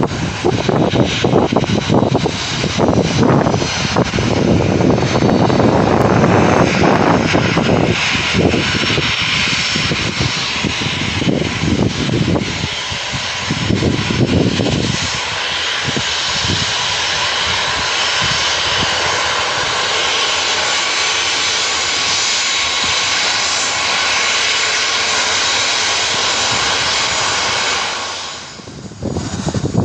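Boeing 737-400 freighter's CFM56 turbofan engines running with a steady jet whine as the aircraft taxis onto the runway. Gusts of wind buffet the microphone through the first half.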